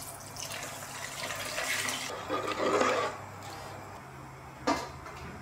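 Water poured from a steel pan into a rice cooker's nonstick inner pot over washed basmati rice: a steady rushing pour lasting about three seconds and growing louder as the pot fills, followed by a single short knock.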